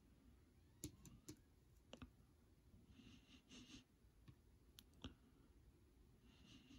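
Cardboard wargame counters being picked up and set down on the map, about six faint clicks and taps spread through, with a soft rustle in the middle and another near the end.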